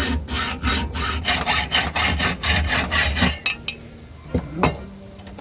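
Rapid back-and-forth rasping strokes of a hand tool cutting into a metal swing-arm pivot shaft, about three strokes a second, stopping a little after three seconds in. A few light metallic clicks and knocks follow.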